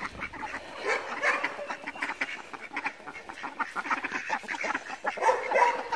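A mixed backyard flock of ducks and chickens calling, with many short quacks and clucks scattered throughout and a louder call about five seconds in.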